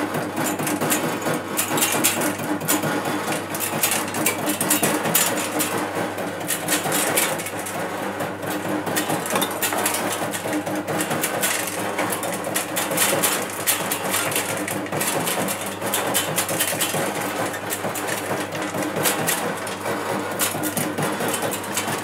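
Custard apple de-seeding machine running: a steady motor hum under a dense, continuous metallic rattle and clatter.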